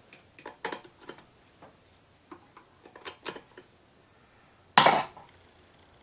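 A hand screwdriver clicking and scraping as it tightens the loose carburetor mount of a Homelite two-stroke leaf blower, a series of light irregular clicks, then one loud sharp clack about five seconds in.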